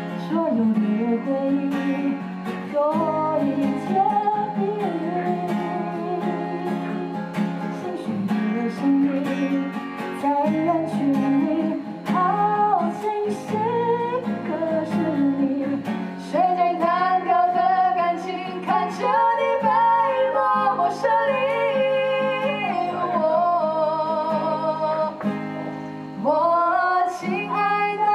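A woman singing to a strummed and picked acoustic guitar.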